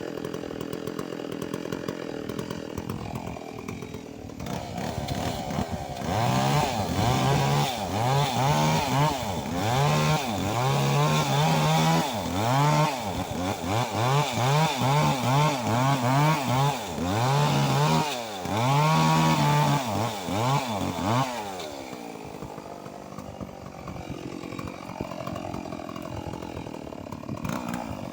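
Stihl MS 381 two-stroke chainsaw idling, then revved up and back down over and over, about once a second, for roughly fifteen seconds. It then settles back to idle and revs up again at the very end.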